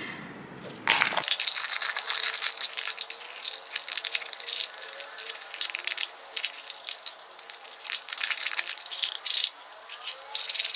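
Brittle sheets of dried Jesmonite crunching and snapping into small terrazzo chips as they are squeezed and broken inside a plastic cup. It is a dense, crackling crunch that starts about a second in and comes in uneven bursts.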